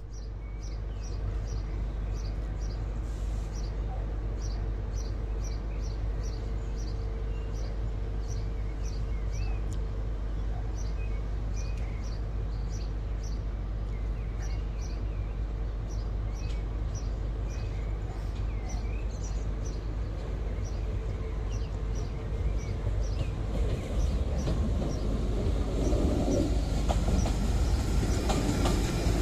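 A bird chirping over and over, evenly spaced, with a few warbling calls, over a steady low rumble. Near the end a GWR Hitachi Class 800 train comes through, its running noise building and drowning out the birds.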